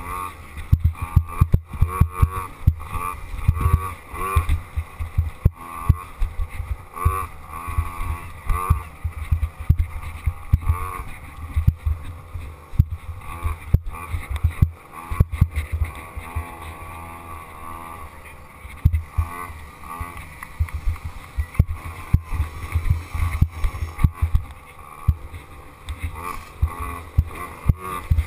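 Dirt bike engine revving up and down as it is ridden along a bumpy trail, heard from a helmet-mounted camera, with wind buffeting and jolts thumping on the microphone.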